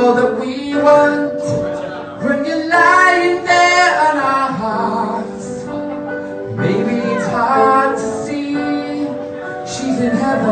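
A woman singing a slow song over backing music, with long held notes that slide between pitches.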